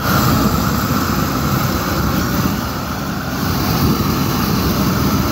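Propane wand torch running with a steady blast of flame, played over pine boards to char them.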